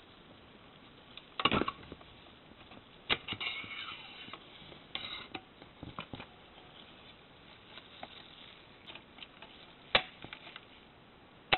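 Handling noises as a metal axle is pushed through a laser-printer OPC drum and the plastic drum unit is turned in the hands: scattered light clicks and knocks, with a short squeaky scrape about three and a half seconds in and the sharpest click about ten seconds in.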